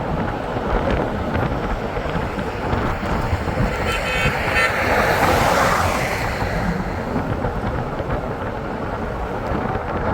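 A vehicle driving along a road, with steady road rumble and wind buffeting the microphone. A short toot sounds about four seconds in, with a swell of noise just after.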